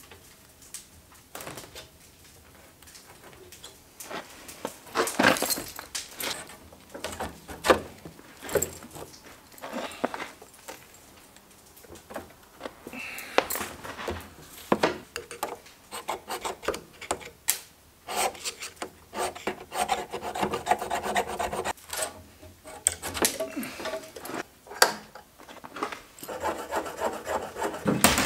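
Handling noise from fitting a metal storage-compartment door frame into its opening: irregular knocks, clicks and scraping of metal against metal as it is pushed into place and adjusted.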